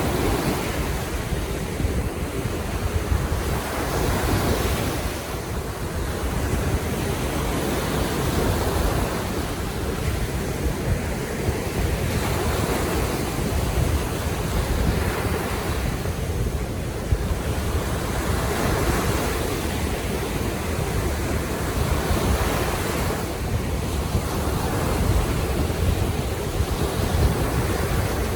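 Baltic Sea waves washing ashore in gentle surges every few seconds, under a steady low rumble of wind on the microphone.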